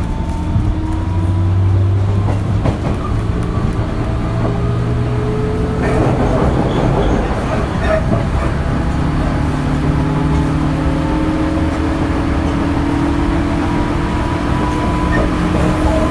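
Onboard running sound of a JR 205 series electric commuter train's externally-fanned traction motor, its whine rising in pitch as the train accelerates, over steady wheel and track rumble. A louder stretch of track noise comes about six seconds in, and the motor tones climb again from about eight seconds on.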